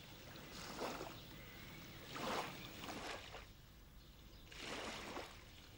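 Faint lake water: soft washes of water that rise and fall every second or two.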